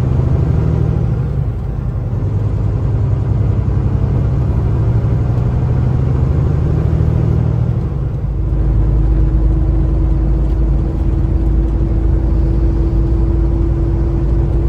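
Kenworth T680 semi-truck's diesel engine and road noise heard inside the cab while cruising. About eight seconds in the engine note changes to a deeper rumble with a steady hum above it.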